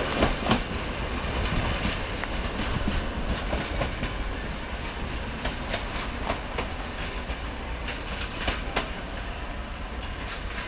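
Passenger train running on the rails, its wheels clacking over rail joints in irregular clicks, the sound slowly fading as the train moves away.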